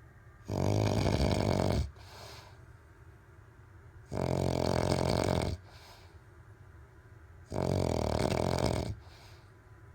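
A man snoring in his sleep: three loud snores, each a little over a second long, coming about every three and a half seconds, with quieter breathing between them.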